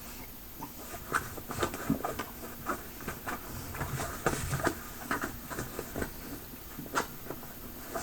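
Rummaging in a bag and handling small gear: a series of irregular light clicks, taps and rustles, a few sharper clicks standing out.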